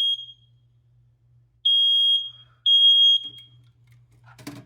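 Household smoke alarm going off again from lingering test smoke, sounding high single-pitched beeps in its temporal pattern. The tail of one beep is followed by a pause, then two more beeps about a second apart, and then it falls silent. A short clatter comes near the end.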